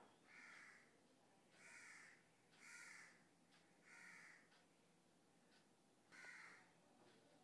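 A crow cawing faintly: five short, harsh caws roughly a second apart, the last coming after a pause of about two seconds.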